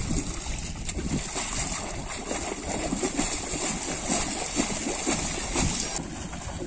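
Water splashing and churning in repeated irregular surges as a long-handled digging tool is worked back and forth in shallow water.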